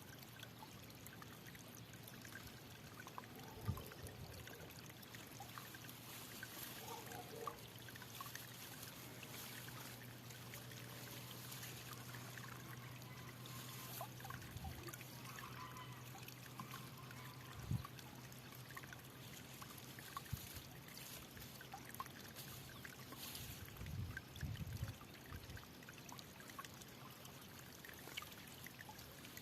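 Flowing water trickling: a faint, steady wash full of small splashes and drips, with a few soft low knocks scattered through.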